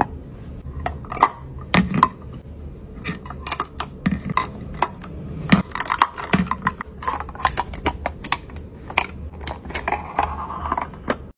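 Irregular clicks and taps of hard plastic as lipstick tubes, a lid and a pull-up insert are handled in a clear acrylic lipstick organizer.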